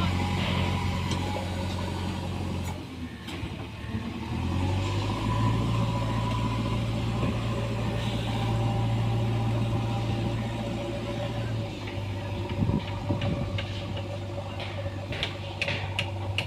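A JCB backhoe loader's diesel engine running steadily. It grows louder about four and a half seconds in and drops back near twelve seconds, with scattered sharp knocks in the last few seconds.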